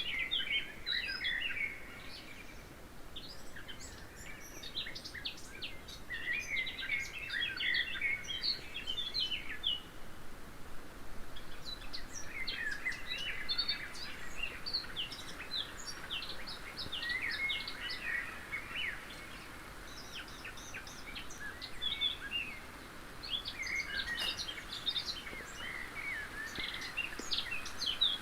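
Songbirds singing: rapid runs of short, high chirps from several birds overlapping, in bouts with brief pauses between them.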